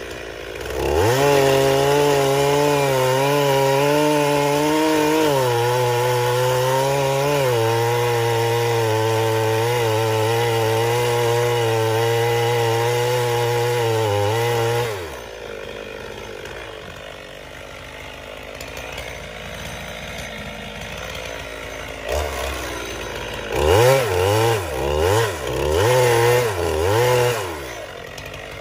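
Gas chainsaw cutting into the base of a eucalyptus trunk at full throttle, its engine note wavering slightly under the load of the cut, then dropping back to idle about fifteen seconds in. Near the end the saw is revved several times.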